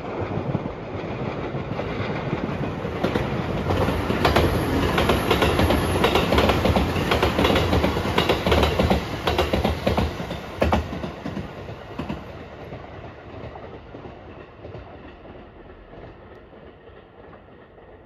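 Marine Liner electric multiple-unit train passing close by. It builds up, is loudest in the middle with a run of clicks from the wheels crossing rail joints, then fades away as it leaves.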